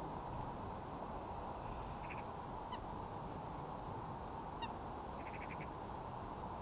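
Steady low outdoor background noise with a few faint bird calls over it: two short honk-like notes, about three and four and a half seconds in, and two brief rapid trills of clicks, around two and five seconds in.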